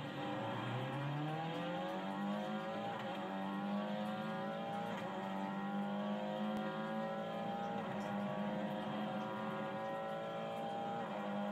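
Formula 4 race car engine accelerating hard at a race start. Its pitch climbs steadily in each gear and drops back at four quick upshifts, roughly every two to three seconds.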